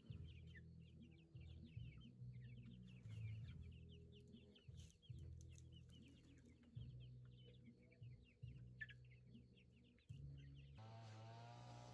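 A flock of chickens at feed, faintly clucking and cheeping with many short, quick calls. About a second before the end this gives way abruptly to a steady low hum.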